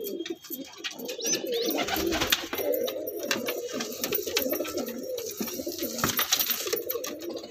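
Domestic pigeons cooing steadily, with rustling and clicking from a hand handling a nesting pigeon's feathers through most of it.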